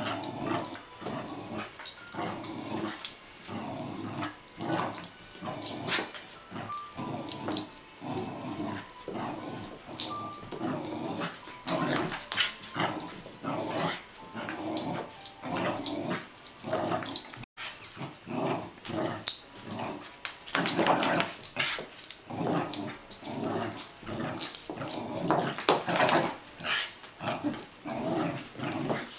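Corgi growling in play while whirling with a toy, short growls repeated over and over, with scattered clicks among them.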